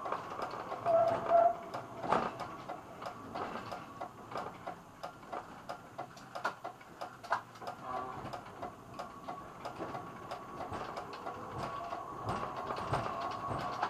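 Tram cab sounds as the tram rolls slowly over junction track and comes to a stop: scattered clicks and ticks, with a faint steady whine in the second half.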